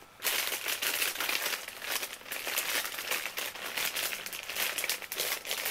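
Clear plastic bags around squishy toys crinkling and rustling as they are handled, a dense continuous crackle.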